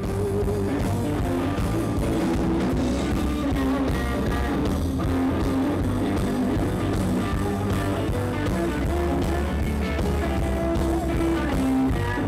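Rock-style background music with guitar and drums and a steady beat, added as an outro track.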